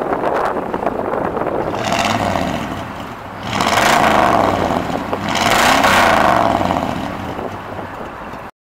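1976 Chevrolet C10 pickup's engine running with the hood up, blipped once lightly and then revved up and back down twice, each rev a rising then falling pitch. The sound cuts off suddenly near the end.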